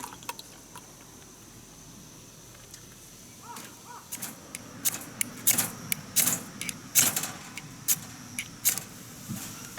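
Irregular sharp clicks and light knocks of tableware and utensils being handled during a meal, starting about a third of the way in and coming every half second or so.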